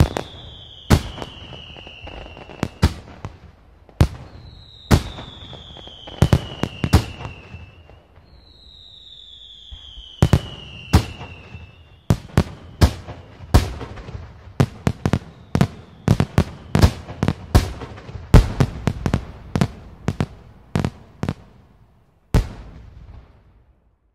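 Fireworks display: a run of sharp bangs at irregular spacing, coming thicker and faster in the second half, with three faint whistles sliding down in pitch in the first half. A last bang comes about 22 seconds in, and then the sound dies away.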